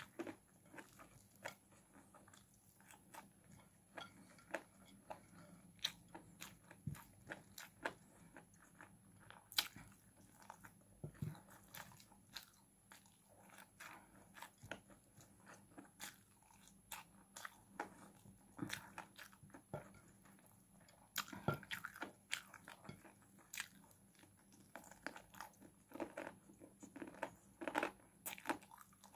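A person eating chicken and rice by hand: quiet chewing and biting with many short, sharp mouth clicks and smacks, coming thicker near the end.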